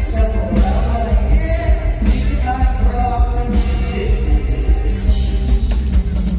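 Live mor lam band music played loud through a stage PA, with a steady heavy bass beat and a voice singing over it.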